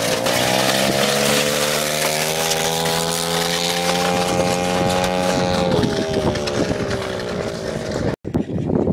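A 110 cc pitbike's four-stroke single-cylinder engine revving hard as it pulls away under load, towing a heavy air conditioner. The note climbs, holds steady, then drops about six seconds in as the bike rides off. The sound cuts off abruptly near the end.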